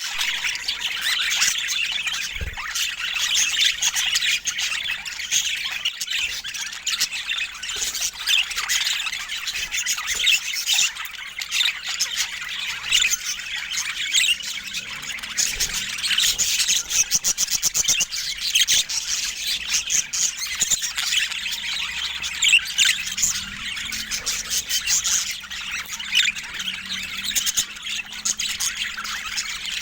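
Budgerigar chatter: continuous high chirps, warbles and squawks, with a quick run of clicking about halfway through.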